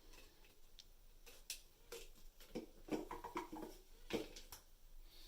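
Light clicks and knocks of small bidet mounting parts being handled and fitted in place, scattered and irregular, with a cluster in the middle and a louder knock about four seconds in.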